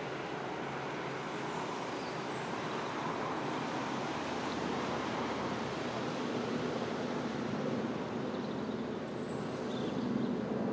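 Steady rushing outdoor background noise with no distinct events, growing a little louder near the end.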